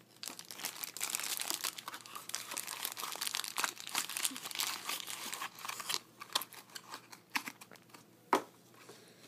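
Thin clear plastic wrapping bag crinkling in the hands for about six seconds, then sparser handling sounds from a small cardboard toy box, with one sharp tap near the end.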